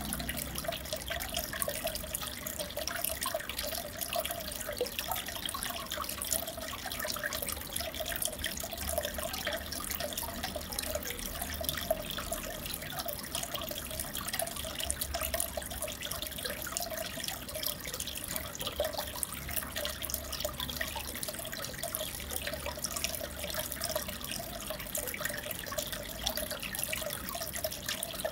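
Aquarium water trickling and bubbling steadily, with many small drips and pops over a low hum.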